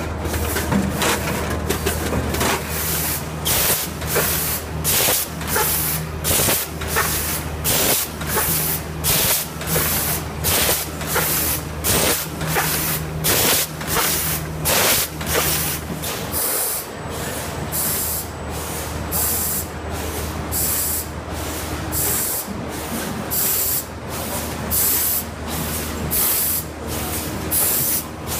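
Lemon packing-line machinery running, with a steady low hum and a rhythmic hiss of air about twice a second. The low hum drops away about halfway through while the hissing keeps its beat.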